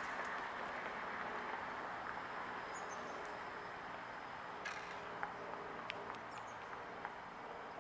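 Outdoor ambience: a steady wash of distant road traffic that slowly fades away, with a few faint, short high bird chirps and small clicks over it.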